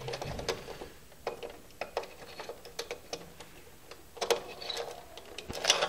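Scattered small clicks and taps of a wire being handled against the plastic wiring duct and terminal blocks inside an electrical panel, with a louder cluster of clicks about four seconds in and again near the end.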